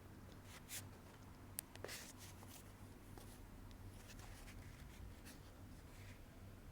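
Faint, irregular scraping and light tapping of a utensil in a mixing bowl as an egg-yolk, sugar and oil batter is beaten, over a low steady hum.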